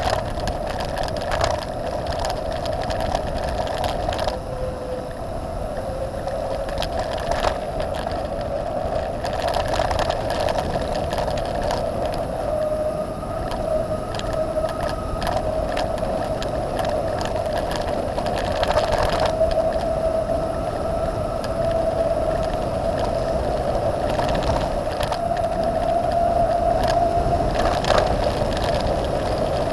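Trek Top Fuel 9.8 mountain bike rolling fast downhill: steady tyre and wind noise with a hum that drifts a little in pitch as the speed changes, broken by short knocks and rattles from bumps in the road surface, which changes from asphalt to gravel near the end.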